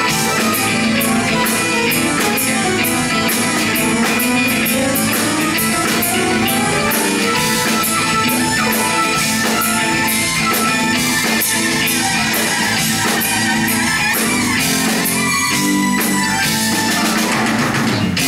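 Live instrumental progressive rock band playing: synthesizer, electric bass, drum kit and electric guitar together, over a steady drum-and-cymbal beat.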